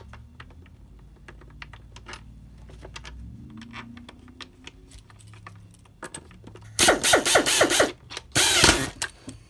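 Screwdriver driving screws back into a Windsor Sensor S12 upright vacuum's plastic base plate. Light handling clicks are followed near the end by a loud run of rapid ratcheting clicks and a short whirring burst as a screw is run in.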